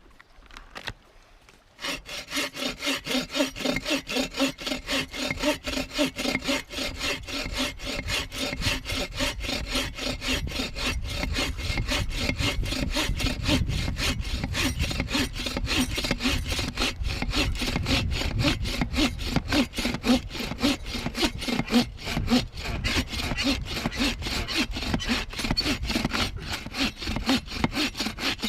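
Hand saw cutting through wood in quick, even back-and-forth strokes, starting about two seconds in.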